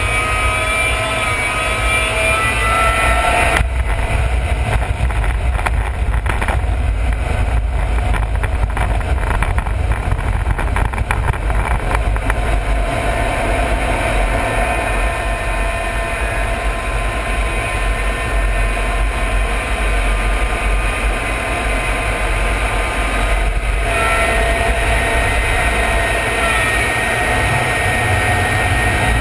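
Cockpit noise of a KAI T-50B jet trainer in flight during an aerobatic display: a steady rush of engine and airflow noise with a faint turbine whine that shifts in pitch and drops out a few times.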